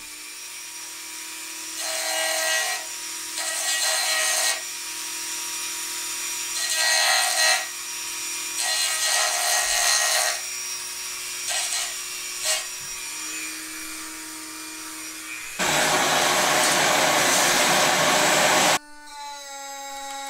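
Dremel rotary tool running with a steady whine, grinding down an angle on the metal landing gear bracket in five short spells. For about three seconds near the end there is a loud hiss, then a different small motor whine starts just before the end.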